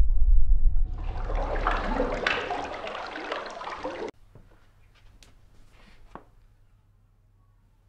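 Water in a bath splashing and sloshing, with a low rumble under its first second; the water sound cuts off abruptly about four seconds in, leaving a few faint drips and soft ticks.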